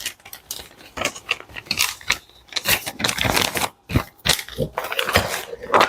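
Irregular handling noise: small clicks, knocks and crinkling as sewing-machine accessories and their packaging are picked up and set out.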